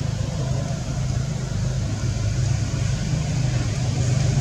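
Steady low droning hum with an even hiss above it, like a machine or engine running in the background.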